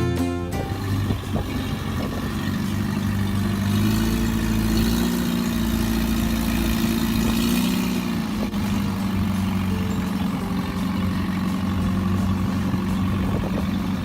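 An engine running steadily, its pitch rising slightly and easing back about halfway through.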